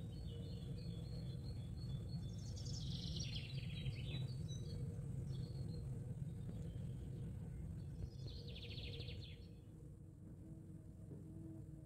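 Small birds chirping over a steady low background rumble, with two rapid trilling calls, one a couple of seconds in and another about eight seconds in; the birds fall quiet near the end.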